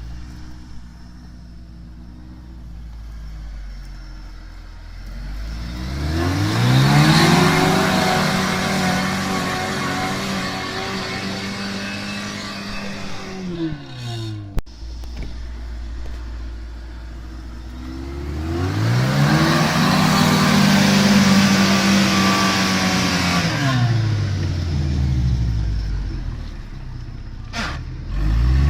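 Off-road 4x4's engine revving up, holding high revs for several seconds, then dropping back. This happens twice, with a sudden cut between the two, and it starts to rev up again at the very end.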